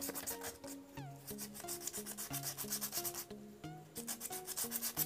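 Quick back-and-forth hand sanding of a small air-cooler water pump's rotor to clean the rust and dirt off it, about six to eight strokes a second. Background music with a melody of stepping notes plays under it.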